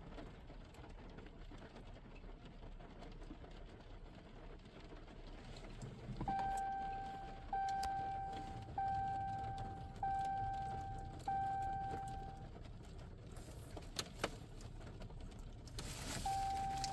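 A pickup truck's warning chime: one steady tone repeated five times about a second and a quarter apart, each fading as it rings, then sounding once more near the end. A few faint clicks come between the chimes.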